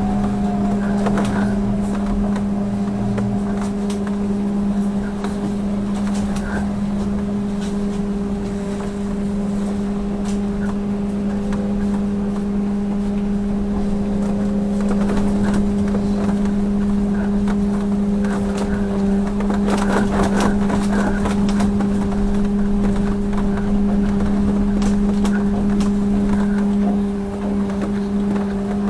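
Trolleybus riding along, heard from inside: a strong electric hum holds one pitch throughout over steady road rumble, with a cluster of light rattles and clicks about twenty seconds in.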